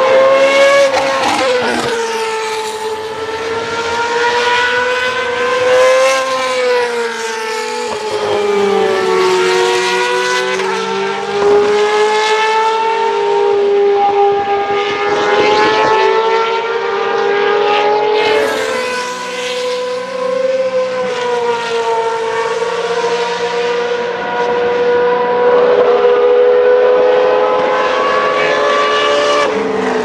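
Naturally aspirated V8 single-seater racing cars at high revs on track, one after another, the engine note rising and falling through gear changes and as cars pass. The engine sound never lets up.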